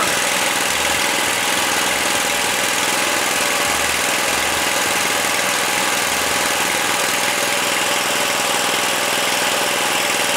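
Small single-cylinder petrol engine of a motor cultivator running steadily at idle, its carburettor just repaired.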